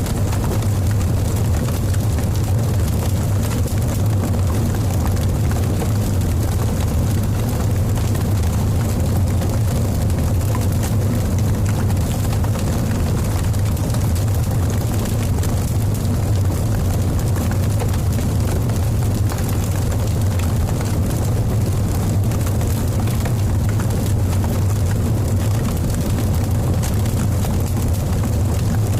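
Large fire burning intensely: a steady deep rumble with crackling through it.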